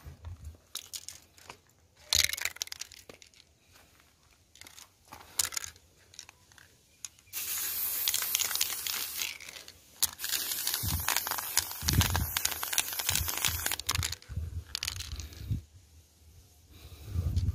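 Aerosol spray-paint can spraying: a few short bursts of hiss, then two long steady sprays from about seven seconds in, with a brief break between them. A few low thumps fall during the second spray.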